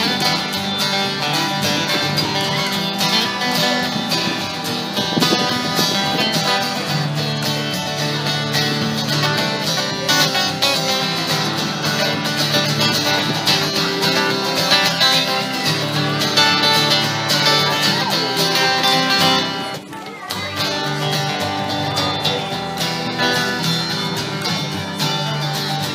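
Live acoustic band playing: two acoustic guitars strummed and picked over a plucked double bass, with a momentary drop in the playing about twenty seconds in.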